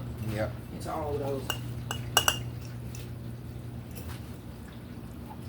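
Glass Mason jars and kitchen utensils clinking as cucumber spears are packed into the jars, with a sharp double clink about two seconds in, over a steady low hum.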